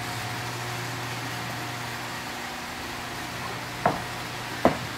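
Steady hum of workshop machinery, with two sharp knocks less than a second apart near the end as a formed acrylic bathtub shell is handled and set against the molded tubs.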